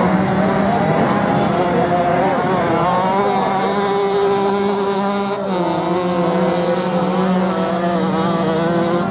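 Several off-road motorcycles racing on sand, their engines revving together with pitches that waver up and down. About five seconds in, the pitch drops as a bike eases off.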